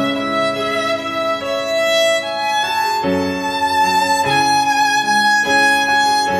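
Background music led by a violin, playing long held notes over lower accompanying notes that change every second or so.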